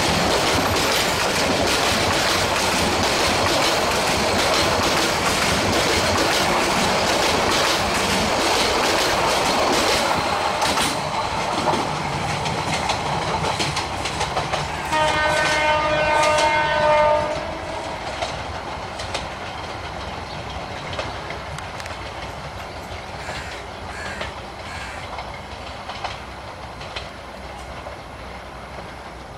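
Bangladesh Railway passenger coaches rolling past close by, wheels clattering over the rail joints, then fading steadily as the train pulls away. About halfway through, the locomotive's horn sounds once for about two seconds.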